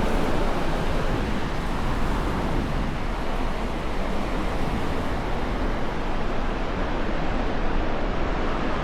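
Strong wind blowing against the microphone: a steady rushing noise with a heavy low rumble.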